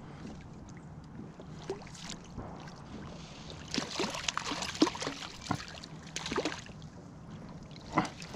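Water splashing and sloshing around a kayak, with a burst of irregular splashes from about four to six and a half seconds in and another splash near the end.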